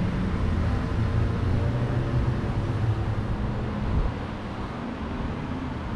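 A motor vehicle running in the street with steady traffic noise, a low engine hum that eases off about four seconds in.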